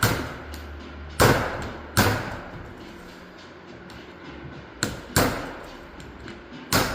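Hammer blows on metal parts of a differential being taken apart: about six sharp strikes at uneven intervals, each with a short ring.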